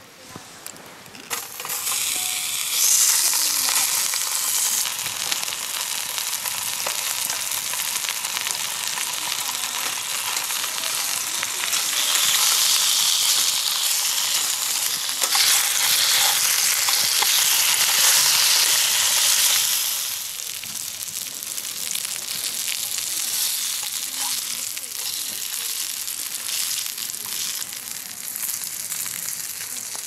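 Food frying in a pan, a dense sizzling hiss that starts about two seconds in, swells louder for several seconds in the middle, then settles to a quieter, steady sizzle.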